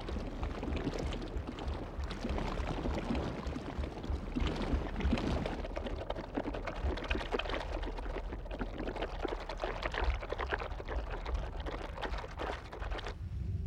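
Liquid bubbling and gurgling, a dense crackle of many small pops over a low rumble, running steadily and cutting off abruptly near the end.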